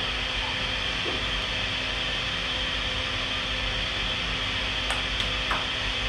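Hair dryer running steadily: an even rush of air with a constant low hum. A couple of faint ticks come near the end.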